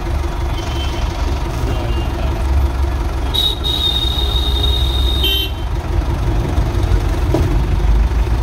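City street traffic with a steady low engine rumble and vehicle horns. A few faint short toots come early, then one long horn blast of about two seconds starts around three and a half seconds in.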